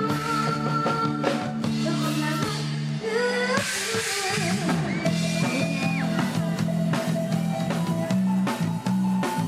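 Live Isan pop band music with a drum kit and sustained melodic instrument lines, including a long held note that slides near the middle.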